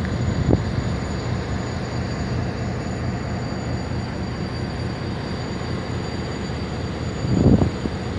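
Diesel-electric locomotive idling in a rail yard, a steady low drone, with a brief louder burst of noise near the end.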